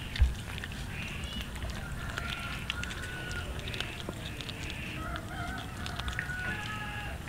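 Cats eating raw fish from a metal plate, with quick wet chewing clicks, and a low thump just after the start. Two long, drawn-out calls from a rooster crowing sound behind them, one about two seconds in and one near the end.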